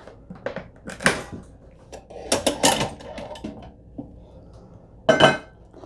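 Metal rotisserie lifting tool hooking and pulling a stainless-steel mesh rotisserie basket out of an air fryer oven: a series of metal clinks and rattles, busiest about two to three seconds in, with a sharper clank near the end.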